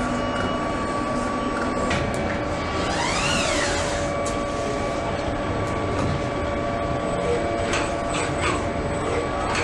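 Factory-floor machinery running on an automated electric-motor stator assembly line: a steady mechanical din with faint steady tones. About three seconds in a motor whine rises and falls in pitch, and a few short hisses come near the end.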